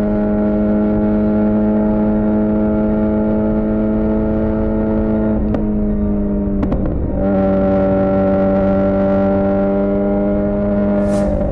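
Suzuki GSX-R600 inline-four running through a Yoshimura R11 exhaust, holding a steady note at constant revs while riding. Just past halfway the note breaks up briefly, then settles back to a steady pitch.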